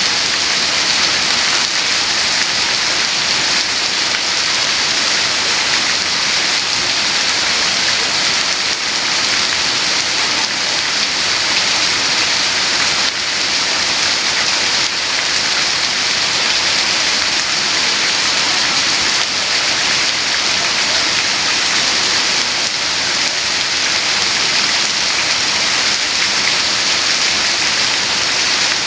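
Heavy rain falling steadily, a constant hiss of rain on surfaces.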